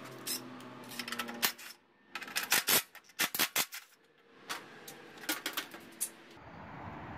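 A cordless impact driver runs briefly, backing out the recoil starter bolts, then comes a string of sharp metallic clinks and clatter as the loose bolts and the recoil starter housing are handled and set down.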